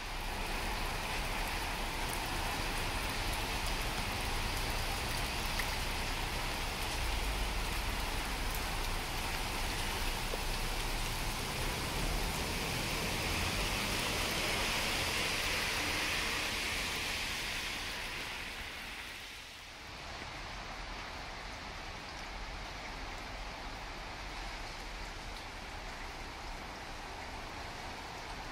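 Steady rain falling on wet paving and garden plants, an even hiss. It dips about two-thirds of the way through and carries on a little quieter.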